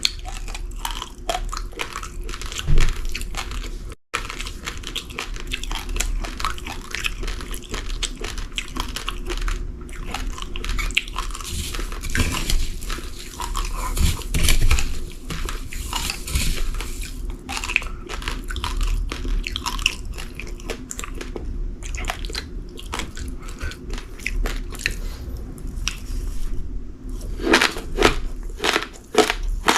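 Uncooked rice grains being crunched and chewed close up: a dense, irregular run of sharp crackling crunches.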